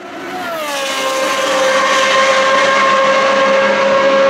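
1972 Lola T280's Cosworth DFV V8 racing engine at high revs, its pitch dropping a little in the first second and then holding steady as the car approaches, growing louder.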